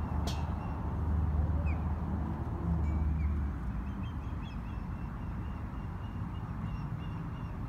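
Outdoor background between pitches: faint, short bird calls repeating over a low rumble that eases off after about three and a half seconds, with one brief sharp tick just after the start.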